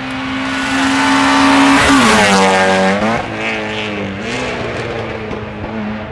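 Rally car engine at high revs passing close by, its pitch dropping sharply as it goes past about two seconds in, then fading as it drives away.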